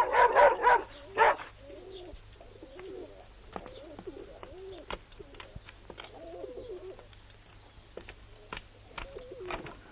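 A dog barks three times in the first second or so, then pigeons coo over and over, with a few faint clicks in between.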